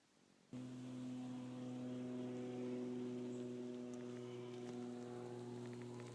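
Steady electrical mains-type hum that cuts in abruptly about half a second in, a low drone with a ladder of even overtones above it.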